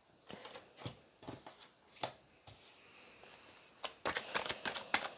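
Tarot cards being handled and laid on a tabletop: a few scattered soft snaps and slaps, then a quicker run of card clicks near the end as cards are pulled from the deck.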